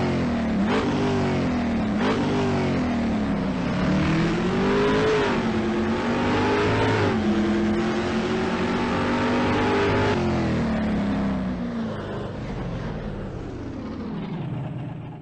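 A car revving hard with its wheels spinning on snow, like a car stuck in the snow. The whine rises and falls again and again, then steadies and fades after about ten seconds.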